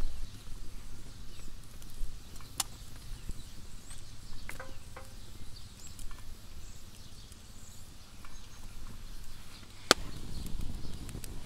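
Wood campfire crackling, with scattered small ticks, a sharp pop about two and a half seconds in and a louder pop near the end.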